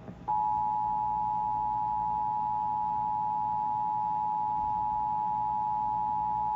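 Emergency Alert System two-tone attention signal from a DASDEC II encoder/decoder: a steady, unbroken two-tone alarm that starts about a quarter second in. It marks an emergency alert, here a flash flood warning, breaking into the cable TV broadcast.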